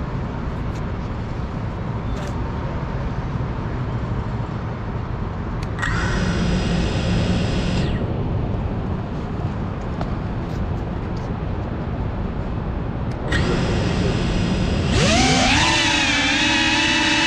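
FPV racing quadcopter's motors: two short throttle blips of high whine, then a spin-up with rising pitch into a steady high whine as the drone lifts off. A steady hum of city traffic lies underneath.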